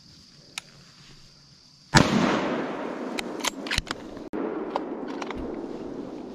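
Insects buzzing steadily, then about two seconds in a single hunting gunshot with a long echoing tail. A few sharp clicks follow over the next two seconds.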